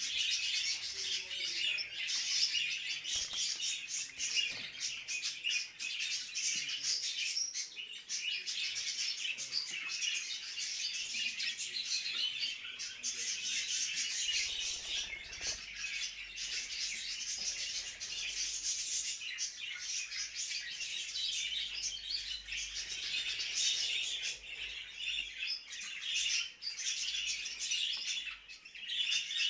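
Budgerigars chattering continuously in their breeding cages, a dense unbroken stream of high chirps and chatter.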